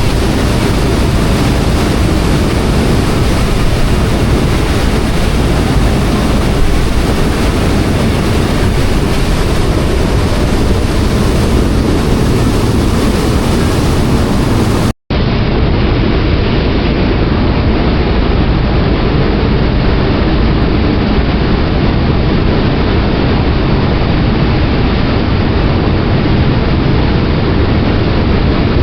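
Ferry under way: a loud, steady rush of wind on the microphone mixed with engine and water noise. It breaks off for an instant about halfway through, then carries on a little duller.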